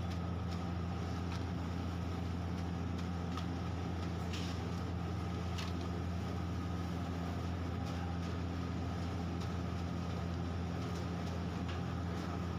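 Potato and bitter gourd slices sizzling as they deep-fry in oil in a kadai, with scattered light clicks from the slotted spoon as they are stirred. A loud steady low hum runs underneath.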